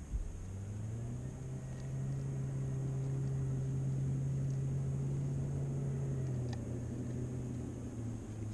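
Redfish (red drum) held out of the water, drumming: a steady low hum with a knock just before it starts, fading near the end.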